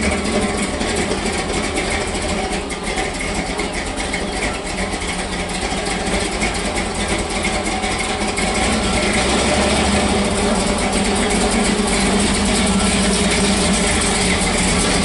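Small truck's engine running steadily, getting louder about nine seconds in.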